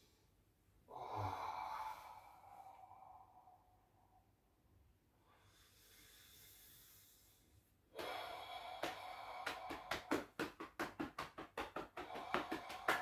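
A man's long audible breath out about a second in, fading away, then quiet breathing. About eight seconds in, music with quick, sharp percussion starts.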